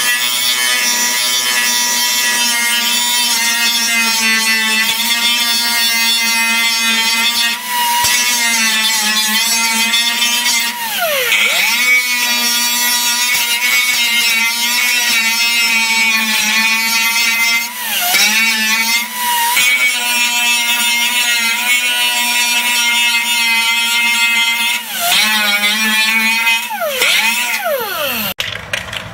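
Small power grinder with a grinding wheel, running at a steady high whine as it grinds down MIG plug welds in sheet-steel car body panel. Its pitch sags and recovers a few times, and near the end it winds down to a stop.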